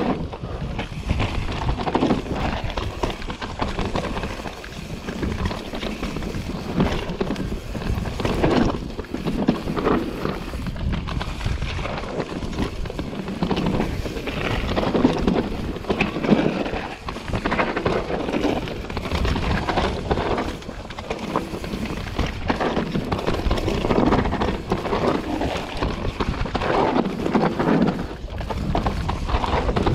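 Mountain bike descending a rough dirt singletrack at speed: tyres rolling over dirt, roots and rocks and the bike rattling over the bumps, with wind buffeting the microphone, in uneven surges.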